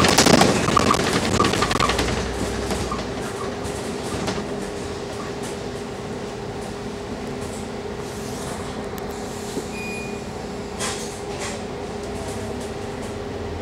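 Cabin sound of a Scania K310UD double-decker bus under way: loud rattling of the bus's fittings for the first couple of seconds, easing into a steady drivetrain hum. A short high beep comes about ten seconds in, followed by a few light knocks.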